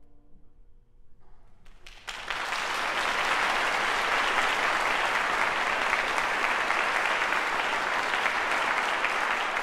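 Audience applause that breaks out suddenly about two seconds in and holds steady, after a faint held piano note fades out at the end of a tenor aria.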